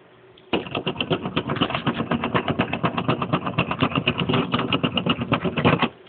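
Littlest Pet Shop Walkables chipmunk toy walking, its mechanism clicking rapidly and evenly at about nine clicks a second. The clicking starts about half a second in and stops suddenly near the end.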